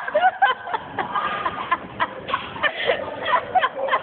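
People's voices calling out and chattering in short, broken bursts, with scattered clicks and knocks.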